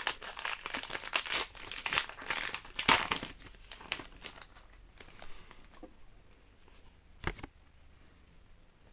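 Foil Pokémon booster pack wrapper crinkling and tearing as it is opened and the cards are pulled out, densest in the first three and a half seconds. A few light clicks follow, and a single thump comes about seven seconds in.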